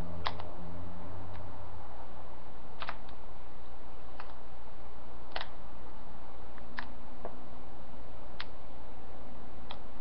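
Small sharp clicks of printed ABS break-away support snapping and crackling as it is picked off the model, irregular, roughly one every second or so, over a steady low hum.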